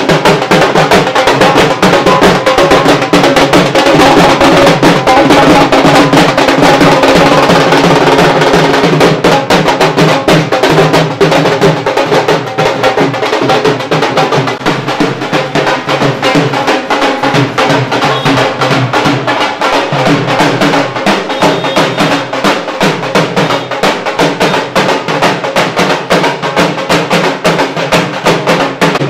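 Loud music driven by fast, dense drumming over a steady melodic accompaniment.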